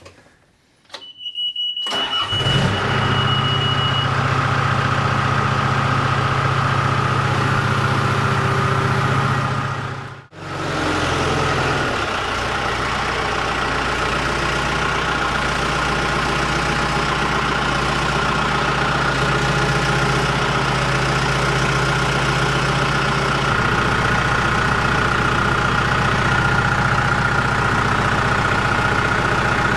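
John Deere 210LE loader tractor's engine starting about two seconds in, with a high steady warning beep around the start, then running steadily. The sound drops out briefly about ten seconds in and the engine runs on.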